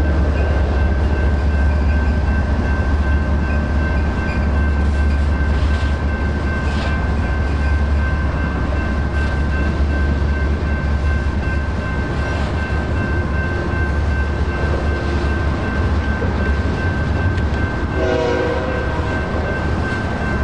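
Freight train cars rolling through a grade crossing with a steady low rumble, while the crossing's NEG electronic bell rings. A short horn blast sounds near the end.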